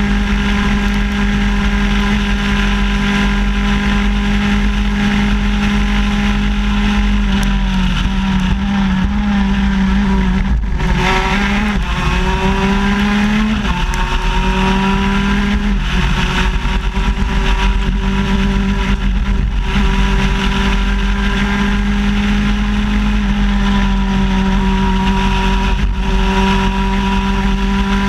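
Shifter kart's 125cc two-stroke engine running hard at high revs, heard from the kart itself. About ten seconds in the pitch drops, then climbs again through a gear change and holds steady and high for the rest.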